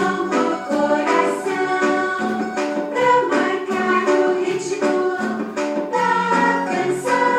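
Music: a song sung by several voices together over a strummed accompaniment.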